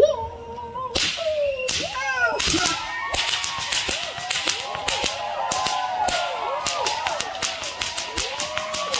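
Two whips cracked at the same time: a few single sharp cracks at first, then rapid cracking at several a second, with the crowd whooping and yelling over it.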